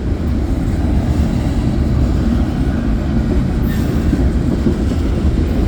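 Freight train cars rolling past on the nearest track, a steady loud rumble of steel wheels on the rails.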